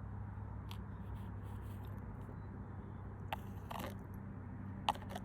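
A pocket knife scraping and cutting into a wooden stick: short scraping strokes about three and a half seconds in, then a few sharp clicks near the end, over a steady low hum.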